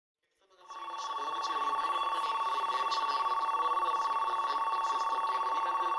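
Continuous electronic ringing, like a telephone ring: two steady high tones close together with a rapid flutter, starting about half a second in and running without a break.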